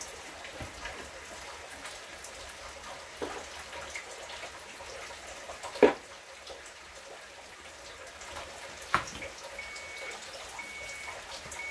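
Kitchen work sounds over a faint steady hiss of running water: light clinks and knocks of utensils, with one sharper knock about six seconds in. Near the end an appliance gives three short, high electronic beeps about a second apart.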